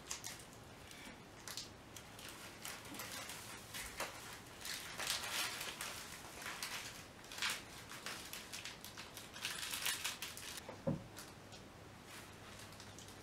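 Pink metallic foil fringe curtain rustling and crinkling as it is handled and pressed up onto the wall, in irregular crackly bursts that are busiest in the middle and die down near the end.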